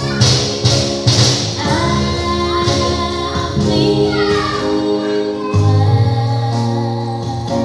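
A woman singing a Christian worship song into a microphone over a backing track with bass and light percussion, her voice holding long, sustained notes.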